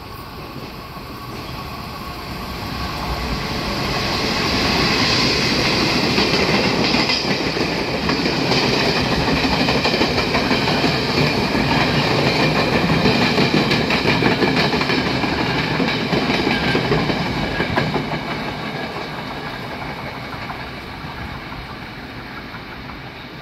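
Chu-Kuang Express passenger train, hauled by E205 electric locomotive, passing through a station without stopping. The sound grows as it approaches, the coach wheels clatter over the rails as they go by, and the train fades as it moves off.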